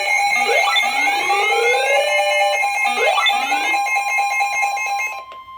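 Emergency alert system attention tone sounding steadily, with rising glides over it. A little after five seconds it drops to a quieter single steady tone.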